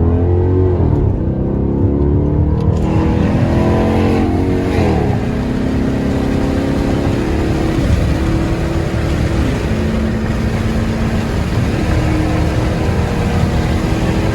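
Chrysler 300C's 5.7-litre Hemi V8 through a straight-piped exhaust, with muffler and resonator removed, pulling hard under acceleration. The pitch climbs for about four seconds, drops sharply at an upshift, then holds steadier with a couple of smaller dips and rises.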